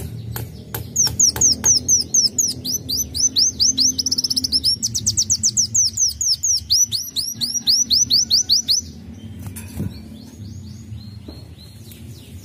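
Caged sunbird singing a fast run of sharp, high, slurred notes, about five a second, with a quicker trill in the middle. The run stops abruptly about nine seconds in, and softer chirps follow.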